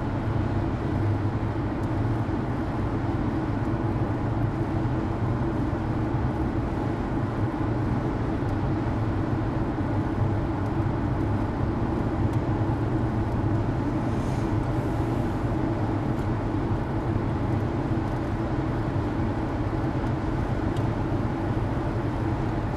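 Steady low drone of road and engine noise heard from inside a vehicle cruising at highway speed, unchanging throughout.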